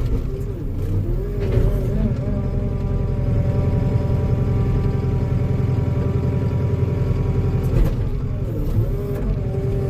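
Diesel engine of a compact earthmoving machine running steadily at working speed. Its pitch sags briefly about a second in and again near the end as the machine pushes against a tree.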